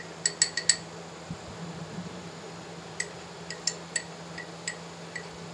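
Light clinks of a ceramic bowl knocked against a glass baking dish as cornflour is tapped out of it: four quick clinks just after the start, then several single ones spread over the second half, over a steady low hum.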